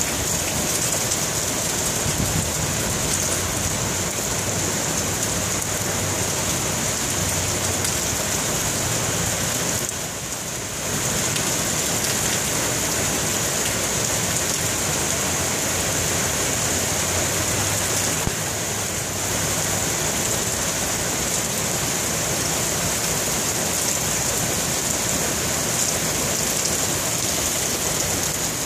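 Torrential hurricane rain pouring onto pavement and parked cars: a steady, heavy hiss that eases briefly twice, about a third of the way in and again past the halfway point.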